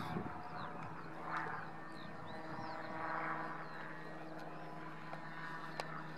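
Distant radio-controlled model aircraft droning steadily as its motor and propeller run in flight, the sound swelling a little twice.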